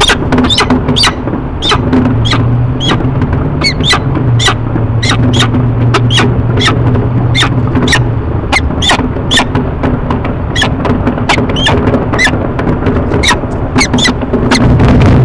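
Peregrine falcon calling over and over, short sharp calls about two a second, alarm calling from a bird disturbed by a loud noise. Behind it is a steady rough hum from the webcam's feed.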